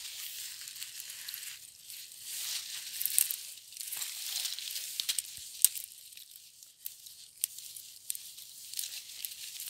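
Dry twigs and dead vines rustling and crackling as hands work through a shrub picking off young leafy shoots, with small sharp snaps scattered through, the loudest a little past halfway.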